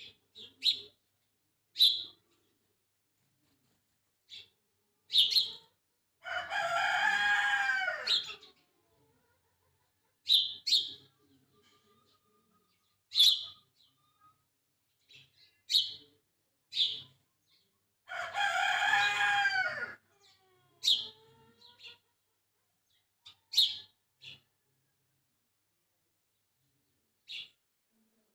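A rooster crowing twice, each crow about two seconds long and falling in pitch at the end, among short, high bird chirps.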